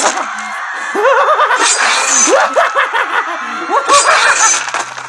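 A man's villainous cackling laughter in several bursts over background music.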